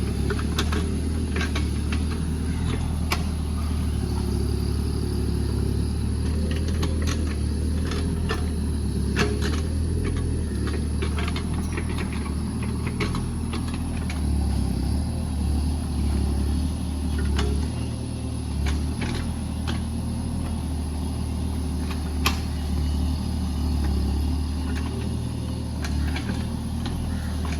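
JCB JS30 Plus mini excavator's diesel engine running steadily, with short sharp knocks and clanks scattered through the working.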